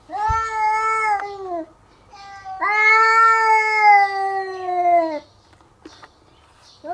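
Cat yowling in a territorial standoff with a rival cat: two long, drawn-out calls, the second the longer, each sagging in pitch as it ends.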